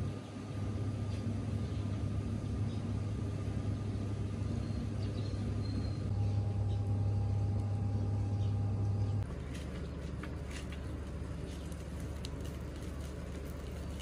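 A steady low hum for the first nine seconds or so, which then stops abruptly. After it, a wood fire burning in an open hearth crackles with scattered small snaps.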